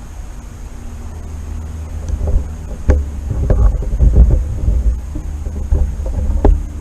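Wind rumbling on the camera microphone, with a series of knocks and bumps; the sharpest come about three seconds in and near the end.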